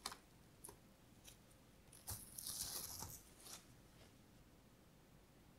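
Plastic cling film crinkling as it is peeled off a glass bowl: a few small crackles, then a longer crinkling rustle about two seconds in that lasts around a second and a half.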